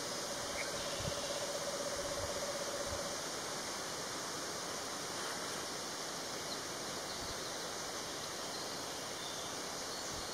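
Eastern screech-owl singing its monotone trill: one level, rapidly pulsed trill lasting about three seconds, over a steady background hiss.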